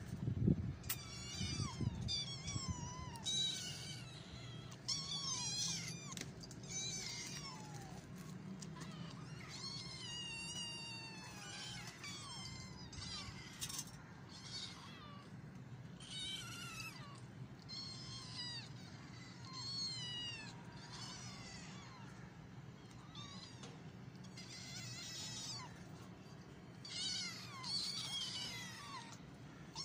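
Kittens mewing over and over, high-pitched cries that bend up and down in pitch, often several in quick succession. A low thump sounds right at the start.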